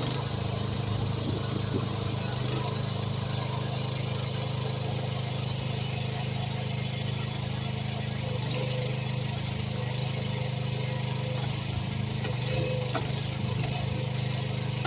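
AGT H13R mini excavator's engine running at a steady speed while it digs, with a few faint knocks.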